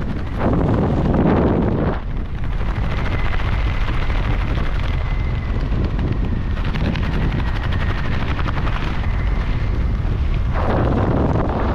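Wind buffeting the camera microphone during a tandem skydive descent: a steady low rumble, with two louder gusts, one just after the start and one near the end.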